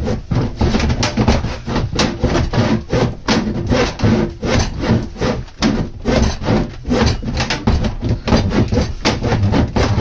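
Hand saw cutting through the side of a black plastic cold water storage tank, in rapid back-and-forth rasping strokes, about two a second.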